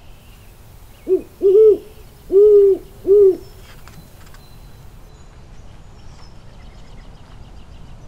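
Owl hooting: four low hoots in about two seconds, the first very short and the third the longest.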